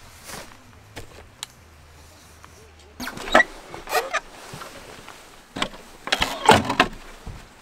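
Nylon camping gear being handled: a few light clicks, then two bursts of rustling and scraping about three and six seconds in.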